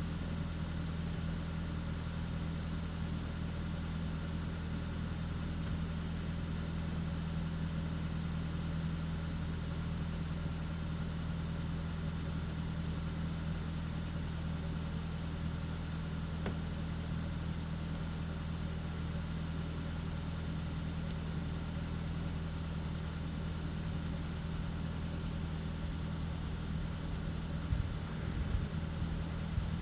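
A steady low mechanical hum, unchanging in pitch and level, like an engine or motor running at idle, with a few faint knocks near the end.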